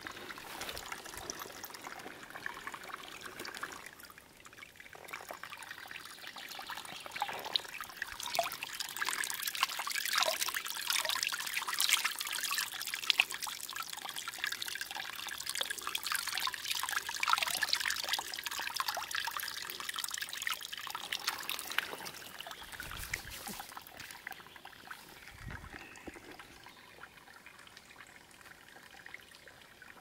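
A small, shallow forest stream trickling and bubbling over stones and roots, a steady babble of water with many small splashes, louder through the middle stretch.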